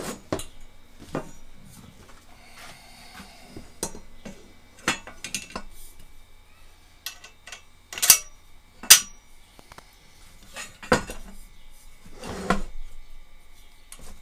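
Scattered metal clinks and knocks as a metal pitch control rod tube is worked onto the lower end of a homebuilt airplane's control stick on a wooden bench, with two sharp clanks a second apart just past the middle.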